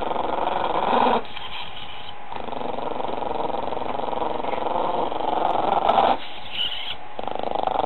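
Chihuahua growling in long, rough stretches, with short breaks about a second in and again near six seconds.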